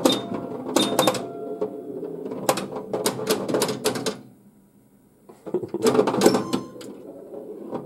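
1978 Bally Black Jack pinball machine in play: the ball striking bumpers and targets, flippers and coils clacking in quick sharp hits, with a few short steady tones from the game. A little past the middle it goes almost quiet for about a second, then comes a fresh flurry of hits.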